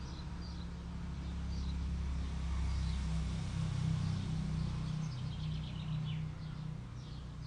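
Low, steady rumble of a vehicle engine that swells about three to four seconds in and then eases, with small birds chirping faintly and briefly, including a quick run of chirps near the end.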